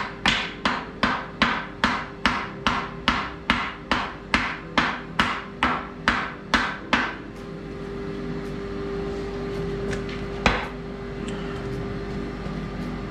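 Hand hammer striking a steel anvil in a fast, even run of blows, about three a second, which stops about seven seconds in. After that a steady hum carries on, and there is one single knock about ten and a half seconds in.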